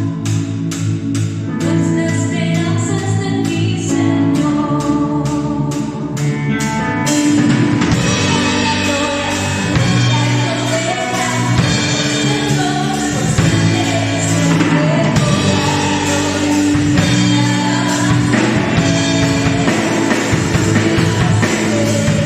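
Christian worship song: singing over instrumental accompaniment, with a steady ticking beat for the first several seconds and a fuller band sound coming in about seven seconds in.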